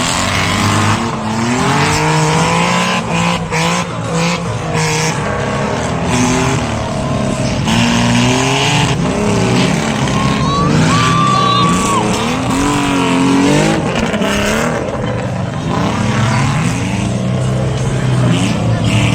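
Car engines revving hard, their pitch repeatedly climbing and dropping. A brief high-pitched squeal comes about ten to eleven seconds in.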